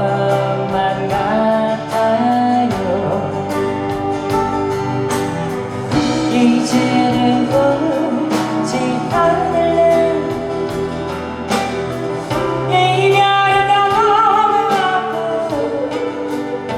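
Live band playing a rock ballad, with a steady drum beat and a lead melody that bends and holds over it.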